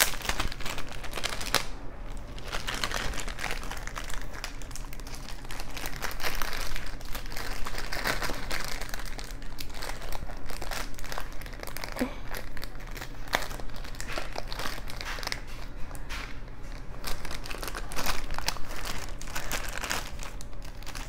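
Thin clear plastic bag crinkling continuously as a stack of trading cards is handled and unwrapped, with many small sharp crackles.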